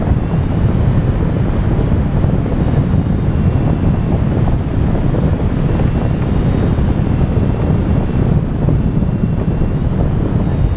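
Rushing airflow buffeting the microphone of a camera mounted on a hang glider's wing in flight: a loud, steady rumble of wind noise.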